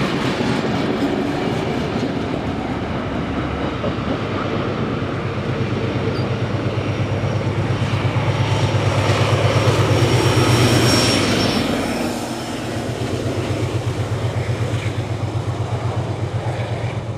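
Passenger carriages and wagons rolling past with wheels clattering over the rail joints, then a trailing NSWGR 45 class diesel locomotive, 4501, going by with a low throbbing engine, loudest about ten seconds in.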